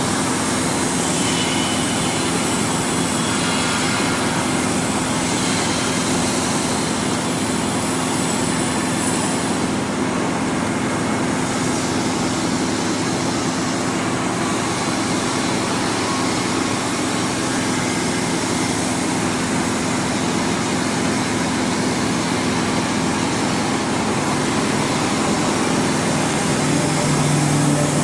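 Steady hum and hiss of an electro-hydraulic press brake's hydraulic pump and motor running. A lower hum joins near the end.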